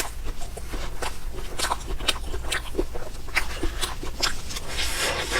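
Close-miked eating sounds of cake being chewed: a run of short, irregular mouth clicks and smacks, a few a second.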